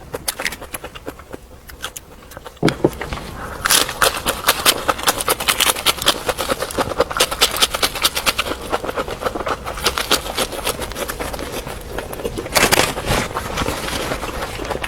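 Crunchy food being chewed close to the microphone: a rapid, uneven run of crisp crunches, softer for the first couple of seconds and then louder.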